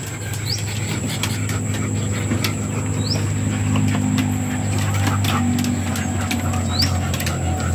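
A steady low motor hum runs under everything. A few short rising bird chirps come at intervals, and faint scattered clicks and taps sound over it.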